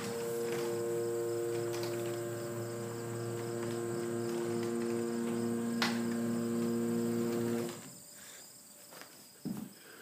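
Sears Craftsman 139.53415SR chain-drive garage door opener running steadily as it raises a sectional garage door, with a single sharp click about six seconds in. The motor stops abruptly about eight seconds in as the door reaches the open position.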